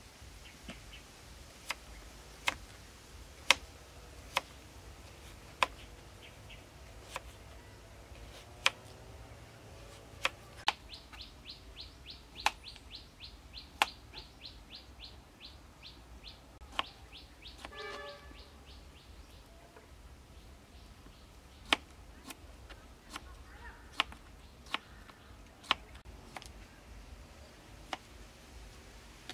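Kitchen knife slicing carrot and cucumber on a plastic cutting board: sharp knocks of the blade striking the board at irregular intervals. A bird chirps in a rapid, even series for about five seconds in the middle.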